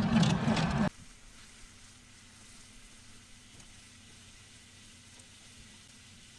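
A motor-driven machine running with a low, even hum, cut off abruptly about a second in, followed by a faint steady hiss.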